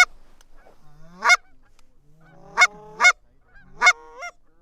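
Goose honks: six loud calls in a few seconds, each breaking sharply upward in pitch, the last one softer.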